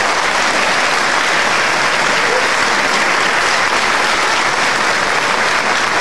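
Legislators in the chamber applauding, a steady wall of clapping.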